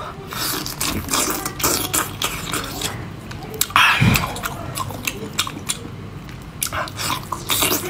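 Close-miked wet chewing and slurping of whole boiled octopus as the tentacles are sucked into the mouth, with many small smacking clicks and a louder slurp about four seconds in.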